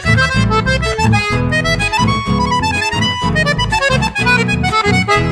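Instrumental break in a folk song, an accordion playing the melody over a steady rhythmic accompaniment, between sung verses.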